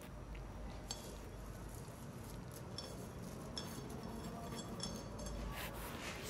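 Faint, scattered clinks and light taps of kitchenware against a metal cooking pot as chopped celery is tipped in from a plate.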